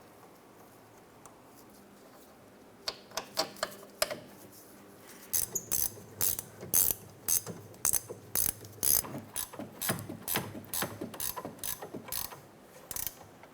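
Hand ratchet clicking as the rear caliper bracket bolts are run in: a few clicks about three seconds in, then a quick, uneven run of clicks from about five seconds in until near the end.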